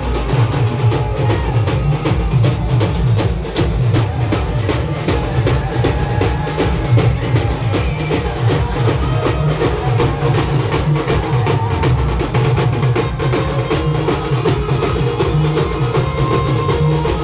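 Loud timli band music: fast, dense drumming over a heavy bass, with a few held notes above it and no break.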